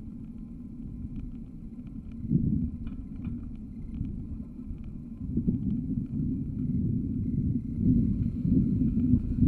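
Low, uneven rumble of a car driving slowly, picked up by a camera mounted outside on the bonnet: wind buffeting on the microphone mixed with engine and road noise, growing louder in the second half.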